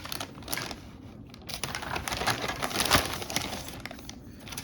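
Plastic model kit parts being handled: a few light clicks, then a dense crinkling, clattering patch of plastic that swells for about two seconds and dies away.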